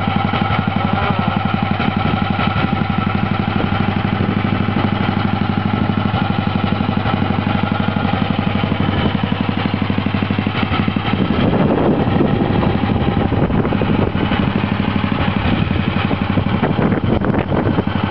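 Neville Evans 500cc single-overhead-cam single-cylinder engine of a Norton Manxman racing motorcycle running at a steady fast idle, with an even, rapid beat. It gets briefly louder about eleven seconds in.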